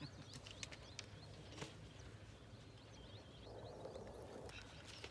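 Quiet outdoor ambience with faint, distant birds chirping and a few light clicks.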